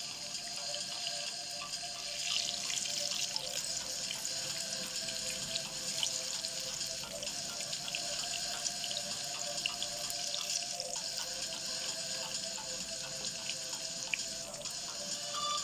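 Eggplant strips sizzling in hot cooking oil in a frying pan: a steady hiss with scattered small pops and clicks.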